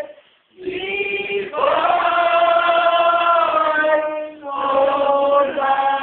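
Unaccompanied singing in long, drawn-out notes, with a short break about half a second in and another dip a little after four seconds.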